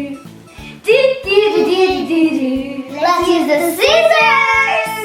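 A child singing a song over backing music with a steady beat.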